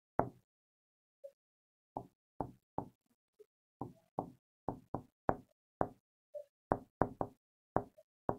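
A pen or stylus tapping and knocking on an interactive writing board while writing, heard as a string of short, irregular taps about two a second.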